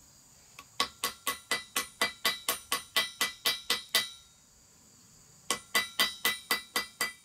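Small hammer tapping an iron canister ball to chip off its rust crust: quick, even, ringing metallic taps, about four a second. The taps start about a second in, stop for about a second and a half in the middle, then resume.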